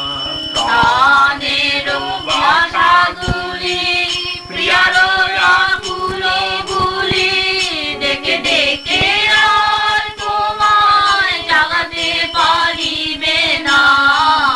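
Kirtan: voices singing a Bengali devotional song in long, wavering held notes.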